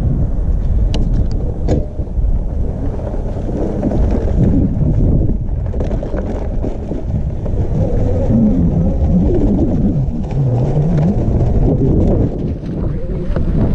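Wind buffeting the microphone while riding a Super 73 electric bike: a loud, steady low rumble, with a wavering tone in the middle few seconds.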